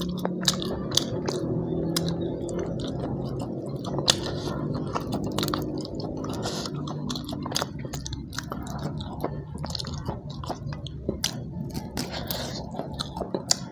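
Close-miked chewing and wet mouth smacking of a man eating rice and fried fish with his fingers, with frequent small clicks.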